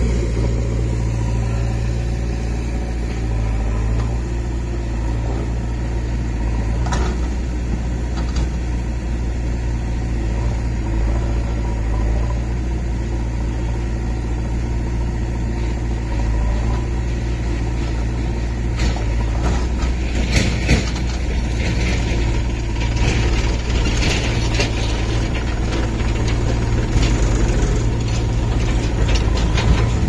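Powertrac 434 DS tractor's diesel engine idling steadily close by, with a backhoe working alongside. From about 19 s on, irregular clatters and knocks join in as the backhoe loads earth into the tractor's trolley.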